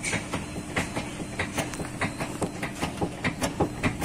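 Rapid, irregular metal clicks and knocks from hands and a tool working on a disc brake caliper, about three to five a second, over a steady low hum.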